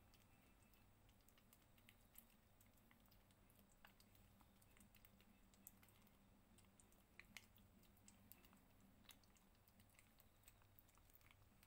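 Faint, irregular wet clicks of a young kitten licking Churu paste treat from a squeeze tube, with a faint steady low hum underneath.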